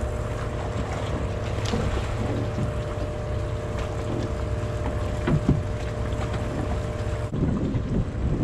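Fishing boat's engine idling with a steady hum, with wind on the microphone. The hum cuts off suddenly about seven seconds in, leaving wind noise.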